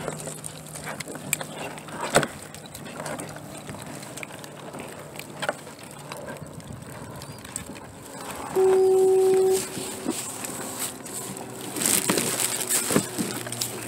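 A loud electronic beep, one steady tone held for about a second, sounds a little past the middle, between scattered light clicks and knocks.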